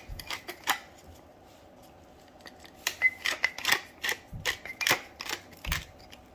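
Hand pepper mill grinding black peppercorns: rapid sharp clicks in two spells, a short one at the start and a longer one from about three seconds in until near the end.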